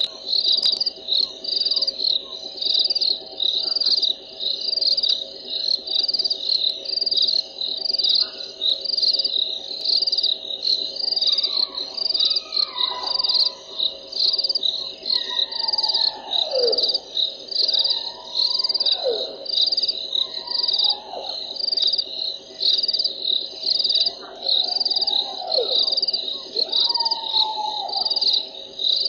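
Night-time wildlife: an insect chirps in high pulses about once a second over a steady low drone. From about a third of the way in, an unidentified animal gives about six drawn-out calls that slide down in pitch.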